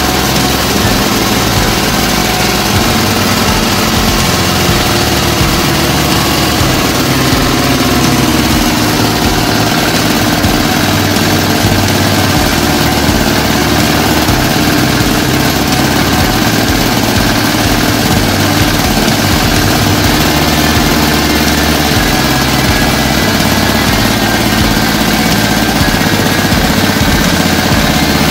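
Single-cylinder air-cooled diesel engine of a walk-behind tractor idling steadily.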